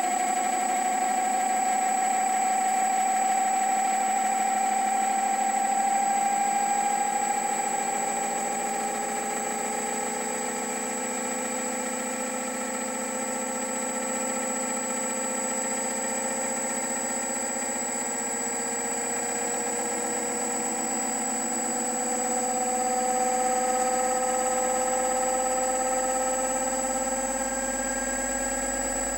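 3D-printed generator test rig running: a motor spins the rotor inside its solid PLA housing, giving a steady whine that slowly rises in pitch as the speed and output voltage build, over a constant high whistle.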